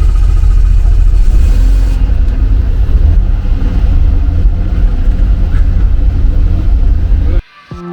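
Helicopter engine and rotor running steadily at close range with a heavy, deep rumble, having just been started; it sounds a bit like an old tractor. The sound cuts off suddenly near the end and guitar music comes in.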